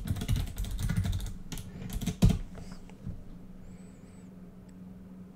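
Typing on a computer keyboard: a quick run of keystrokes for about two seconds, ending in one sharper click, then only a faint steady hum.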